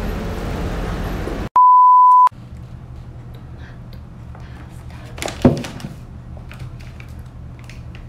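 Outdoor traffic noise cuts off abruptly about a second and a half in, replaced by a single loud, steady electronic beep of under a second, a test-tone style bleep added in the edit. Then a quiet room hum with one sharp thump about five seconds in.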